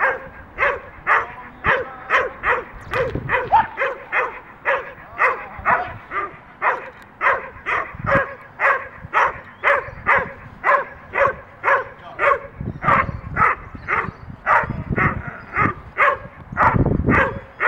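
A dog barking rapidly and repeatedly, about two to three barks a second, with a short break about eight seconds in. These are the steady, driven barks of a leashed dog lunging at a decoy in protection training.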